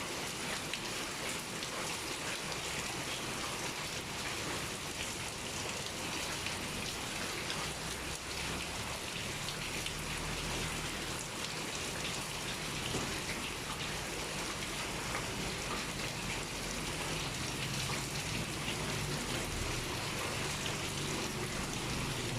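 Steady heavy rain pouring down, a dense even hiss of drops pattering on surfaces.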